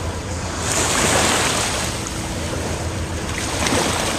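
Waves breaking on a beach, with a surge of surf about a second in, and wind on the microphone. A faint steady hum joins about halfway through.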